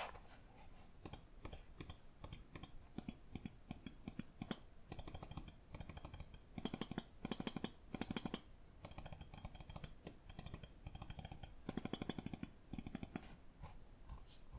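Lamzu Inca gaming mouse clicking over and over, in runs of sharp clicks, some very rapid.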